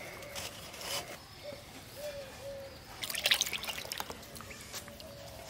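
Water splashing and dripping in a steel bowl as hands scrub and rinse a goat head, with a louder burst of splashing about three seconds in.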